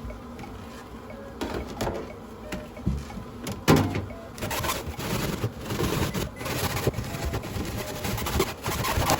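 Irregular scraping and rubbing with occasional light knocks, growing busier and louder a few seconds in: something being worked by hand.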